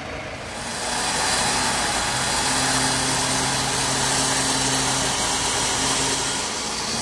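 Four-wheel-drive engine revving hard and holding steady revs under load as the vehicle tries to climb a slippery track. It swells about a second in and eases off near the end, with a loud rushing noise over it.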